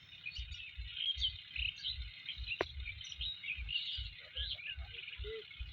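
Many small birds chirping together. Underneath is a low, rhythmic thumping, about four to five beats a second, and a single sharp click a little past the middle.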